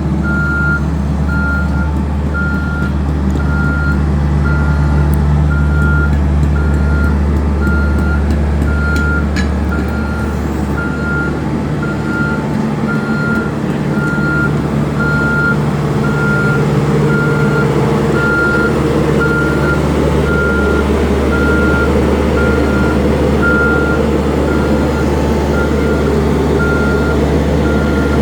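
CAT AP300 asphalt paver's C3.3B diesel engine running steadily under load, with a backup alarm beeping about once a second in a single steady tone.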